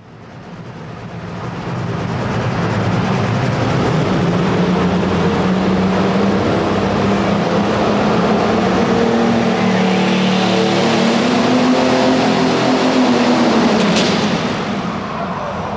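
Super stock pulling tractor engine under full load, running loud and steady while its pitch slowly climbs. About 14 seconds in there is a sharp crack, and then the engine falls away.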